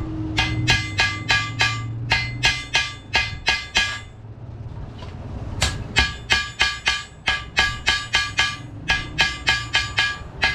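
Hand hammer beating the edge of a thin galvanized steel sheet ring against a steel rail, shaping the rim of a water tank part. Each blow rings with a bright metallic tone, at about four blows a second, with a pause of about a second and a half midway.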